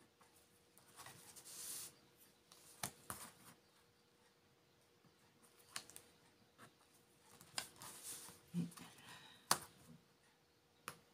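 Faint scratching of a fine felt-tip pen tracing letters through a plastic letter stencil onto card, with a few sharp little clicks and taps between strokes.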